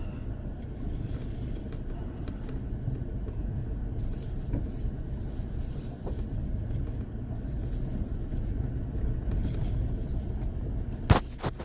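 Pickup truck driving, heard from inside the cab: a steady low rumble of engine and road noise. A couple of sharp clicks near the end.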